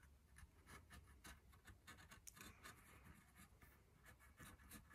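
Faint scratching of a Sharpie permanent marker tracing and filling in letters on the weathered wood of an old stick, in many short, irregular strokes.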